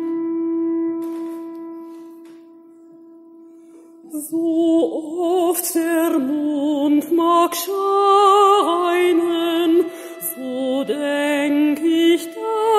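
A pipe organ holds a steady note that fades over the first few seconds. Then, about four seconds in, a mezzo-soprano sings slow held phrases with vibrato over the organ's sustained tones.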